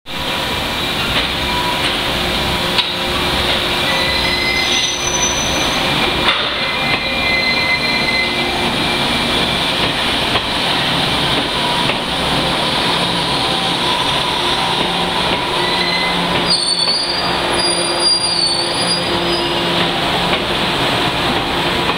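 JR 415 series four-car electric train pulling out and rolling past close by, with steady running noise from its wheels and motors. High-pitched wheel squeals come and go several times, most clearly a few seconds in and again near the end.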